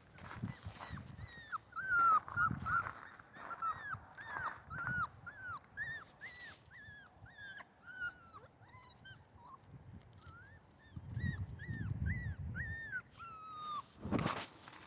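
Central Asian shepherd puppies whining, a long run of short, high-pitched whimpers about two a second, crying at being out in the cold wind. Low gusts of wind rumble on the microphone now and then.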